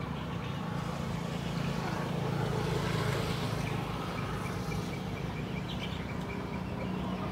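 Steady low engine drone, swelling slightly a couple of seconds in.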